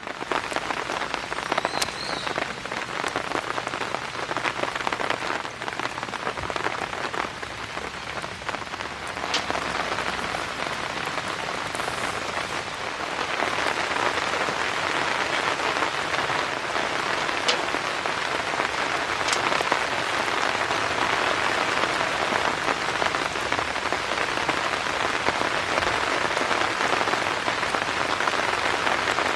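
Steady rain pattering on a TC (polycotton) tarp, growing heavier about halfway through, with a few separate drops ticking.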